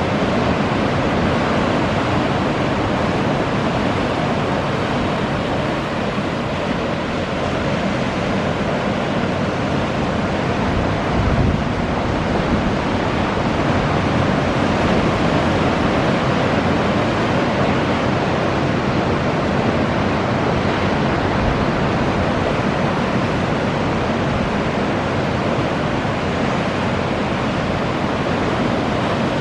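Sea surf: small waves breaking and washing onto a harbour beach, a steady rushing wash, mixed with wind noise on the microphone. A brief louder low rumble comes about eleven seconds in.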